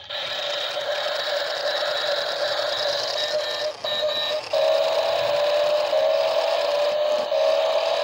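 Small electric motor and gearbox of a toy remote-control jeep whining steadily. It breaks off briefly about halfway, then the pitch creeps up a few times.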